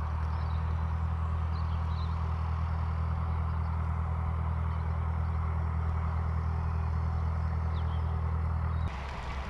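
Steady low mechanical drone at a fixed pitch, running on an airport apron, which cuts off abruptly about a second before the end.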